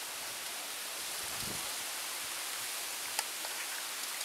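Steady hiss of outdoor background noise, with a faint low thud about a second and a half in and a faint tap a little past three seconds.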